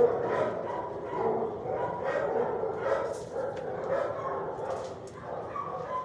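Dog barking repeatedly, about once a second, the loudest bark right at the start.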